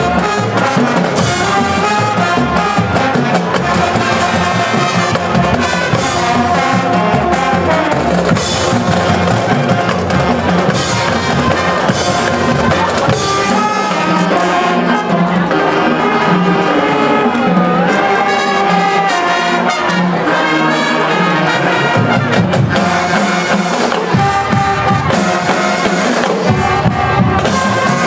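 School marching band playing: a brass section of trumpets, trombones and tubas over drums. The bass end drops away for several seconds in the middle and comes back.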